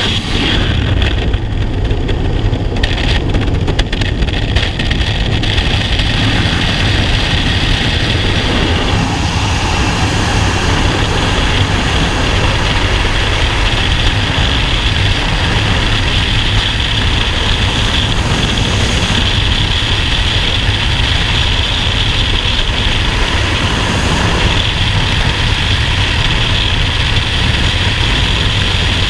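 Loud, steady wind rushing over a skydiving camera's microphone in freefall.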